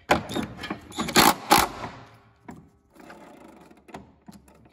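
Cordless power driver with a socket running in several short bursts over about the first two seconds, running down the bolt that holds the mower's rear wheel on. Quieter scattered clicks and handling noise follow.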